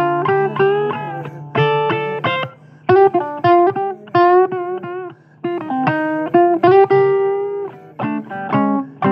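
Blues guitar playing a lead line: runs of single plucked notes, several bent up or down in pitch, over low sustained notes underneath.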